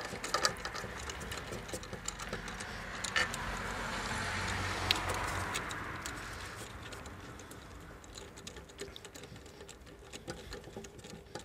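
Ratchet and socket tightening 10 mm bolts in the air intake box, giving light irregular clicks. A broad swell of background noise rises and fades in the middle.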